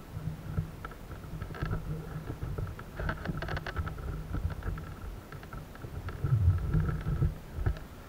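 Wind rumbling on a body-worn camera's microphone while someone walks through grass, with scattered rustles and footfalls.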